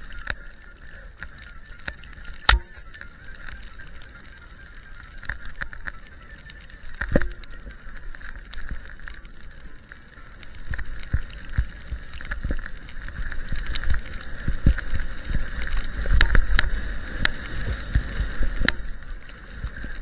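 Skis swishing through deep powder snow on a descent, with wind buffeting the microphone. The wind grows stronger from about ten seconds in. A few sharp knocks come through, the loudest about two and a half seconds in.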